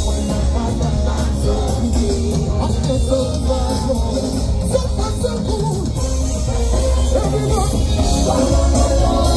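Music with singing over an instrumental backing.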